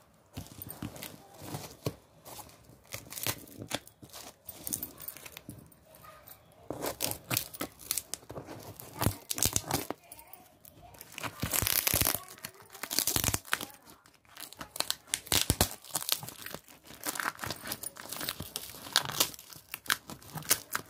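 Clear packing tape and plastic wrap being torn and crinkled off a cardboard parcel by hand, in irregular rasping tearing strokes, the loudest about halfway through.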